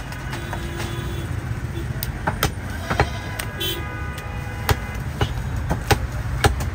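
Heavy meat cleaver chopping goat meat on a wooden log chopping block: a series of sharp, uneven chops, most of them after about two seconds in, over a steady background rumble.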